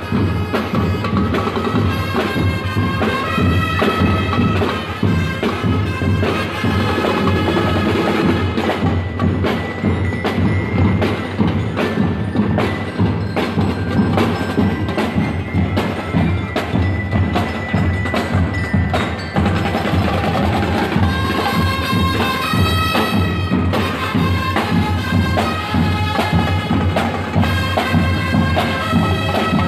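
Marching drum-and-lyre band playing: snare and bass drums keep a steady beat while bell-lyres ring a melody over it.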